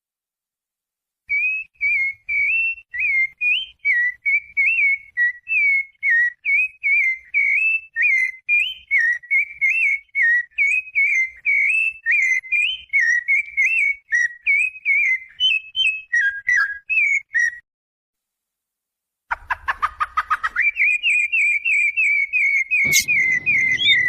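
Songbird singing a fast string of clear, short whistled notes at a fairly even pitch. The singing breaks off for about two seconds around 17 s in, then picks up again as a quick, steady run.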